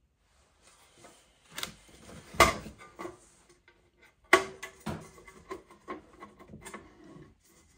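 Parts and tools being handled during assembly: a few sharp knocks and clunks, the loudest about two and a half and four and a half seconds in, the second with a brief ring, with lighter clicks and rustling between them.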